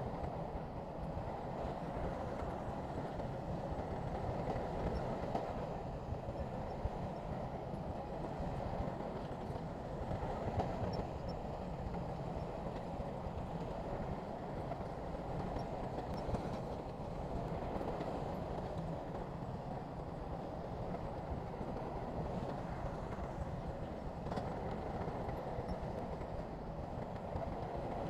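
Shantui crawler bulldozer working, its diesel engine running steadily.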